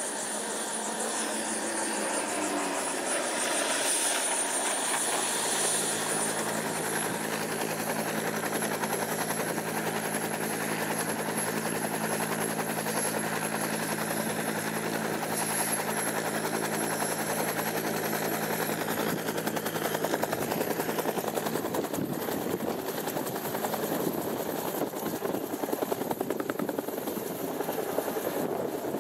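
Bell TAH-1F Cobra helicopter running on the ground, its two-blade rotor turning with a steady beat over a high turbine whine. In the last third the sound grows rougher and the beat pulses louder as the helicopter lifts off.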